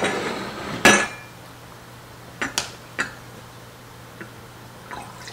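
Glassware and utensils handled on a counter: a scrape, then a loud clink about a second in, followed by a few smaller clinks as a glass mixing bowl is lifted to a metal funnel in an amber glass bottle.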